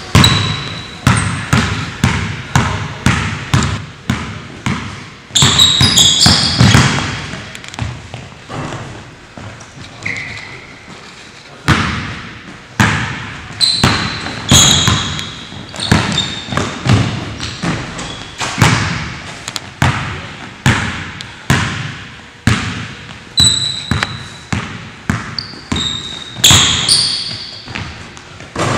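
Basketball dribbled on a hardwood gym floor, bouncing about twice a second, each bounce echoing in the gym, with a quieter lull about ten seconds in. Sneakers squeak on the floor at several points as the players cut and change direction.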